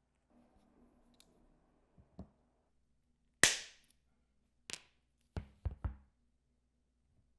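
A faint rustle, then a series of sharp knocks and clacks on a hard surface. The loudest, about three seconds in, rings briefly. One more follows, then three quick ones close together.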